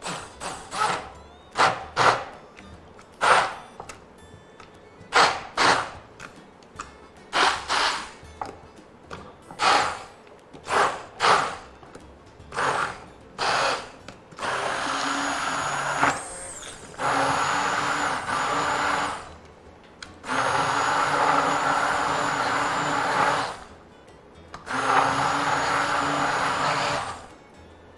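Immersion blender blending soft tofu into a sauce: first a run of short pulses, about one a second, then four longer steady runs of two to three seconds each with a steady motor whine.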